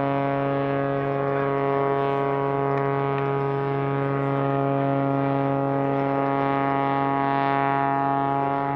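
The MXS-RH aerobatic monoplane's 370 hp engine and propeller drone at full power at one steady pitch while the plane hangs nose-up on its propeller.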